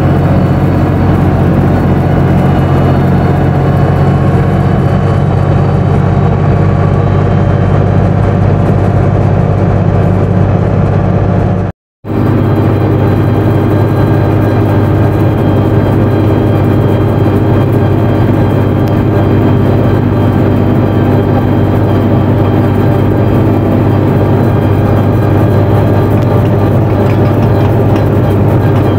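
Massey Ferguson 255 tractor's four-cylinder diesel engine running steadily while driving, heard from inside the cab and then beside the rear wheel. The sound cuts out for a moment about twelve seconds in.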